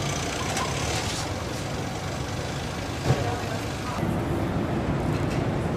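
Car assembly plant floor noise: a steady mechanical hum with scattered clicks and one sharp knock about three seconds in, a little louder after about four seconds.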